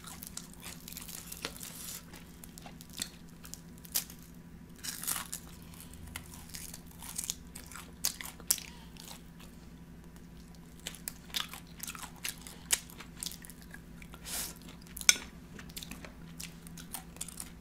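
A person eating oven-fried chicken wings close to the microphone: irregular biting and chewing sounds, with a faint steady low hum underneath.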